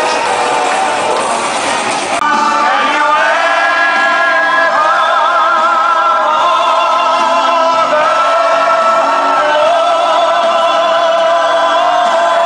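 Loud music with singing. It changes abruptly about two seconds in, then continues with long, held sung notes.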